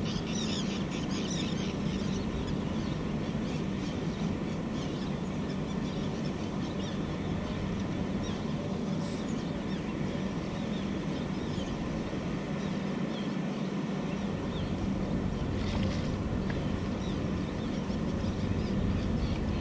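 A steady low engine hum runs throughout, with quick high chirps in the first two seconds.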